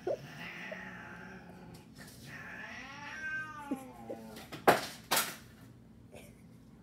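A cat's long meow, its pitch rising and then falling, a little before halfway, followed by two loud, sharp noises about half a second apart.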